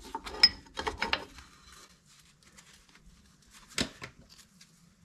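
1992 Geo Tracker rear drum-brake shoes and hold-down pins clicking and rattling against the steel backing plate as they are fitted by hand. A cluster of light metal clicks comes in the first second or so, then a single sharp click near the end.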